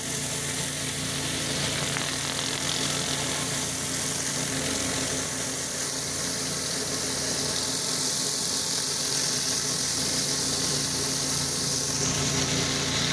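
A pressure washer's engine running steadily, with the constant hiss of high-pressure water spray over it.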